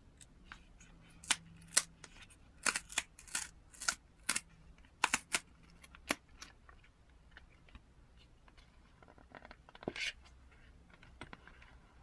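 Paper instruction sheet being handled and folded by hand: a run of sharp crackles and rustles for several seconds, then a shorter cluster near the end.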